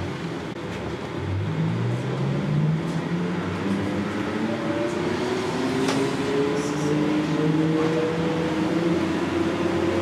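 NAW trolleybus's electric traction motor whining, its pitch rising steadily as the bus accelerates away, over an even hiss of tyres on the wet road.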